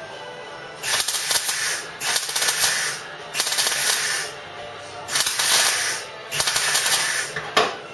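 MIG welder laying a butt weld on thin steel car body panel in short runs: about five crackling bursts, each around a second long, with brief pauses between.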